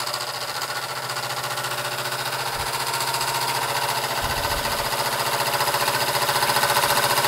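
Weeden 500 model vertical steam engine running on steam: a fast, even beat of puffs and clicks over a steady hiss, growing slightly louder throughout. It is running smoothly on its roughly guessed crank stroke.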